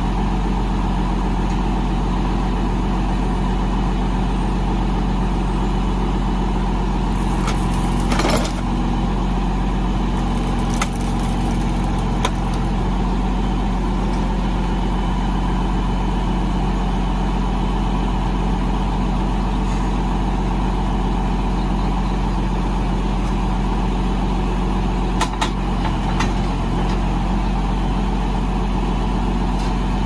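John Deere tractor engine idling steadily, with a few short knocks around eight seconds in and again near twenty-five seconds.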